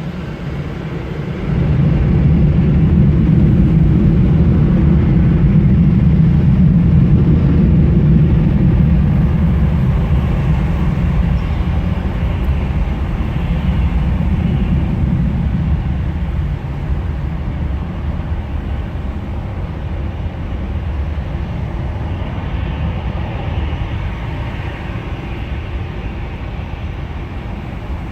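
Loud low rumble of a large passing vehicle that swells about a second and a half in and then slowly fades.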